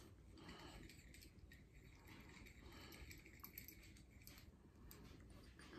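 Near silence: room tone with a few faint clicks.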